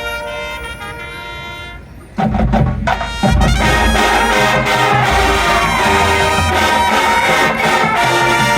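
High school marching band playing: soft held chords for about two seconds, then the full band comes in loud with brass and heavy low drum hits.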